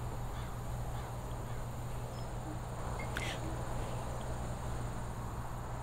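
Quiet background ambience with a steady low hum, and a single faint click about three seconds in.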